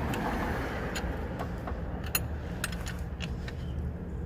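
Scattered sharp metallic clicks and clinks from a hand wrench working the alternator mounting bolts, at uneven intervals, over a steady low rumble.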